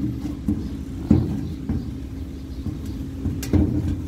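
A steady low machine hum, with a few sharp clicks and knocks of small metal parts being handled.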